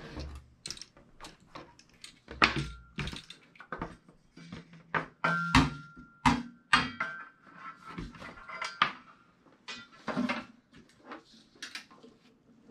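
A folding 100-watt solar panel briefcase being handled: a string of irregular knocks, clicks and clatter from its frame, plastic corner protectors and clips. A few of the knocks leave a short metallic ring.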